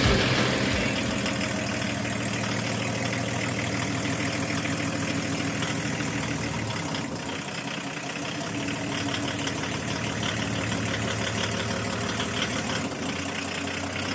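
Volvo 740 car engine idling steadily after being brought back to life; its low drone shifts and softens about seven seconds in. Music fades out at the very start.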